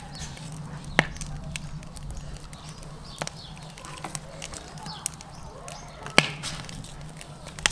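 Knife and hands working whole carp on a wooden cutting board: soft scraping and handling, with a few sharp knocks on the board. A steady low hum runs underneath.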